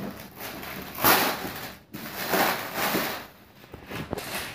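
Clear plastic shrink-wrap crinkling as it is peeled and pulled off a cardboard gift box, in three rustling bursts, the loudest about a second in. A few light clicks and taps follow near the end as the box is handled.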